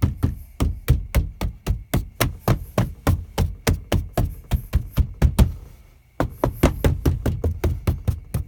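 Rapid hand thumps on a Mazda Miata ND interior door trim panel, about five a second with a brief pause about two-thirds through, seating its push-in clips so the panel sits solid.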